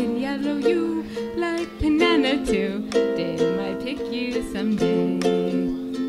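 A woman singing while strumming a ukulele in a steady calypso rhythm: a live solo voice-and-ukulele performance in a small room.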